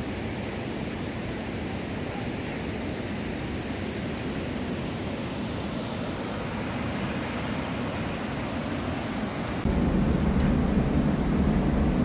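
Steady roar of rushing water from the rapids and cascades of Iguazu Falls. About ten seconds in it jumps louder, with a heavier, deeper rumble.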